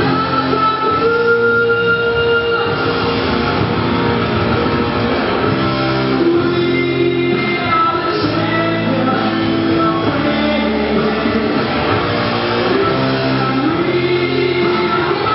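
A song with singing over instruments, playing loud and steady throughout.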